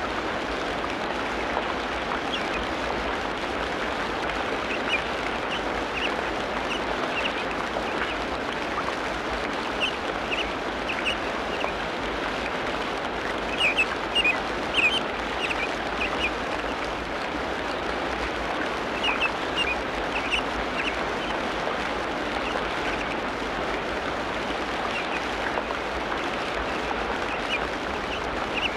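Tropical rainforest ambience: a steady, even hiss with short bird calls chirping in scattered clusters. The loudest cluster comes about halfway through.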